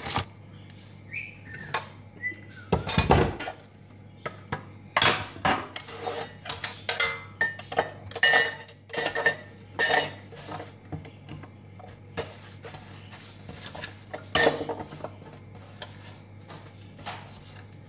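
Dishes and metal kitchenware clinking and knocking as they are handled at a kitchen sink. The clatter comes in an irregular string and is busiest in the middle, with a louder knock near the start and another near the end.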